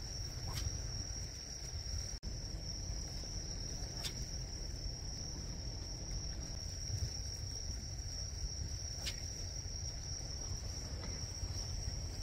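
Crickets chirring in a steady high trill, over a constant low rumble of wind on the microphone. Three faint clicks sound a few seconds apart.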